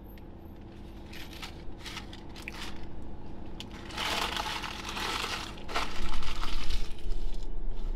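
Paper takeaway bag rustling and crinkling as it is handled, loudest for a couple of seconds in the middle. Near the end a louder low rumble comes in.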